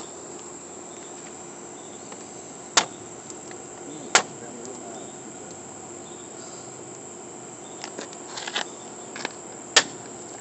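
Steady high-pitched chorus of insects, with a handful of sharp clicks and knocks as the mud-caked CVA Optima muzzleloader pulled from the creek is handled. The loudest clicks come about three and four seconds in, and a cluster comes near the end.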